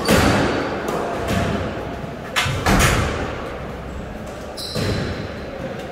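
Squash ball being struck by rackets and hitting the walls during a rally, several sharp hits echoing in the enclosed court. A steady high squeak, typical of court shoes on the wooden floor, comes in over the last second or so.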